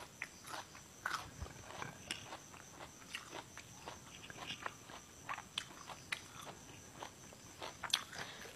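Close-miked chewing of crisp fresh vegetables: irregular small crunches and wet mouth clicks. Near the end, leafy greens are picked through and rustle.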